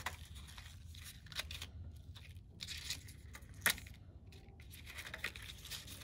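Leafy eucalyptus stems rustling and scraping against cardboard and elastic bands as they are threaded under and over the bands, in short spells of rustling with scattered small clicks and one sharper click about two-thirds through.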